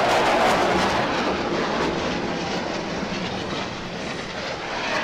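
A Blue Angels F/A-18 Hornet jet passing low overhead. The noise of its twin turbofan engines is loudest in the first second and slowly fades away over the next few seconds.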